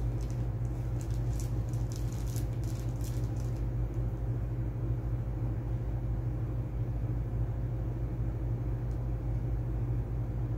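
A steady low mechanical hum with a faint constant tone above it runs throughout. Light rustling of plastic packaging comes and goes during the first three seconds or so, then stops.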